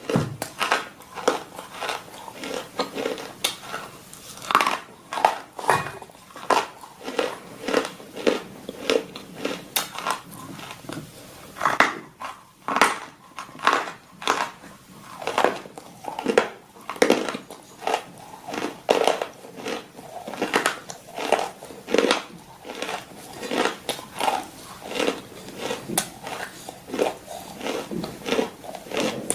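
Crunchy food being bitten and chewed in a steady run of sharp crunches, about one to two a second.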